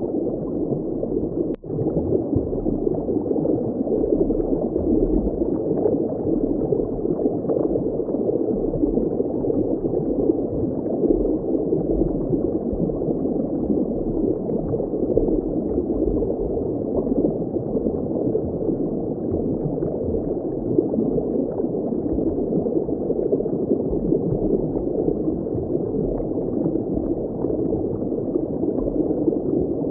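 Steady, muffled water ambience, like bubbling water heard underwater, with all its sound low and nothing bright on top. It dips out for an instant about a second and a half in.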